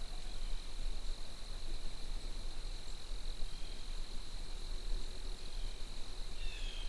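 Steady, high-pitched insect trill, a chorus of crickets or similar insects. A brief falling chirp comes near the end.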